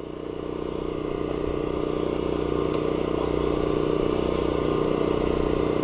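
An engine running steadily, its hum growing louder over the first two seconds and then holding even.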